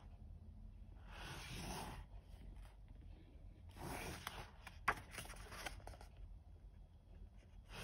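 Paper pages of a softcover colouring book being turned by hand: two brief swishes, about a second in and about four seconds in, with a sharp tick just after the second.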